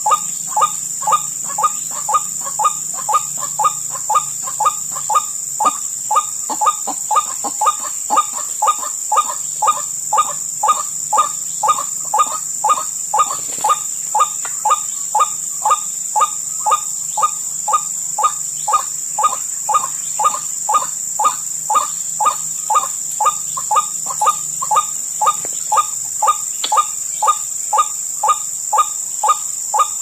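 White-breasted waterhen (ruak-ruak) calling a long, monotonous run of short notes, about two a second, over a steady high-pitched insect drone.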